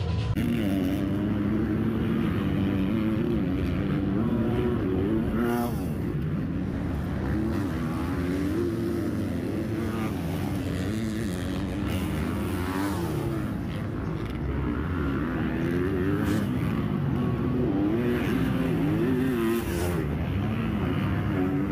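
Several supercross dirt bikes running on the track, their engines revving up and down and overlapping as the riders work the throttle through the course.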